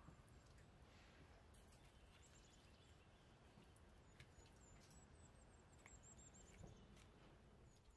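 Near silence: faint room tone with a few soft, scattered clicks of kitchen tongs as raw chicken pieces are set into a glass baking dish, and faint high chirps in the background.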